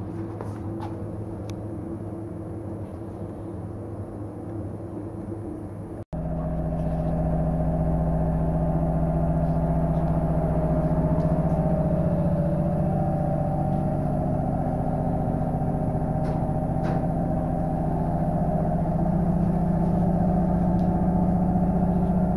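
Steady hum of workshop machinery, a motor running with several held tones and a few faint clicks and knocks. The sound cuts out for an instant about six seconds in and comes back louder.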